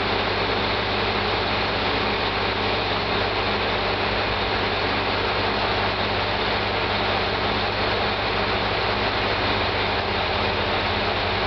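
Steady low drone of an idling diesel engine under a constant hiss, unchanging throughout.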